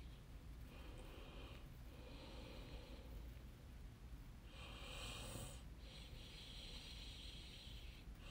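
Near silence: a faint steady low hum, with soft hissing that comes and goes every second or two.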